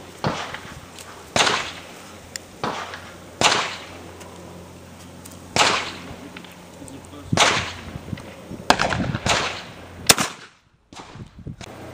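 A run of about ten sharp gunshot cracks at uneven intervals, each with a short echoing tail. The sound cuts out for about a second near the end.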